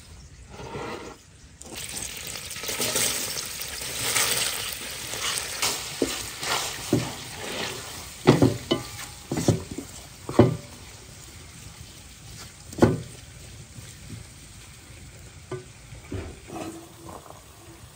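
Sliced onion sizzling in hot oil in a frying pan while a wooden spatula stirs it. Several sharp knocks of the spatula against the pan come in the middle, and the sizzle is quieter near the end.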